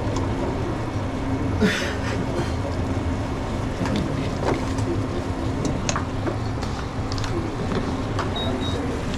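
Steady low rumble and hum of commercial kitchen machinery, with scattered light clicks and clinks and a short hiss about one and a half seconds in.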